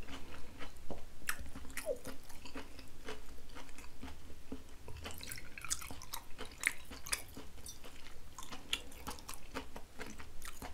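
Close-miked chewing of braised pork belly and green-onion kimchi: wet mouth sounds and many small clicks. About halfway through, soju is poured from a glass bottle into a shot glass.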